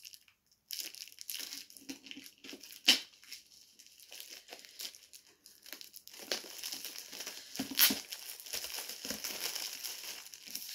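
Clear plastic wrapping being torn open and pulled off a hardcover book, crinkling and crackling throughout, with a sharp loud crack about three seconds in and another about eight seconds in.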